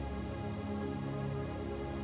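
Slow ambient music: gentle vibraphone tones swelling and overlapping, low in pitch, over a steady bed of brown and pink noise.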